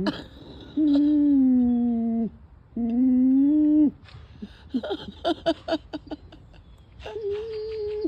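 Dog whining in frustration at prey she can't reach under a sheet of plywood. There are two long drawn-out whines, then a string of short broken whimpers, and a higher whine near the end.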